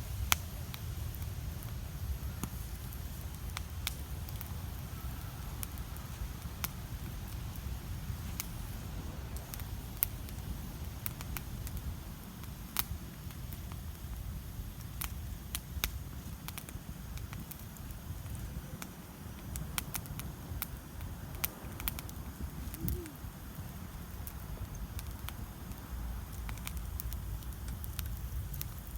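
Campfire crackling: irregular sharp pops and snaps from the burning wood over a steady low rumble.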